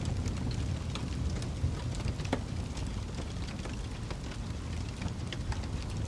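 Wood fire crackling in a fireplace: irregular sharp pops and snaps over a low, steady rumble of flames.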